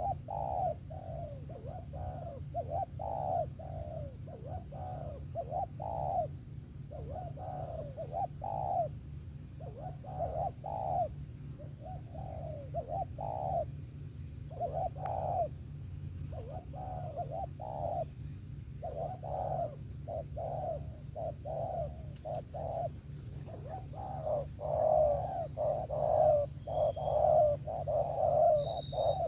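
Spotted dove (cu gáy) cooing over and over in short phrases of deep coos, louder in the last few seconds. Near the end a smaller bird chirps with high notes.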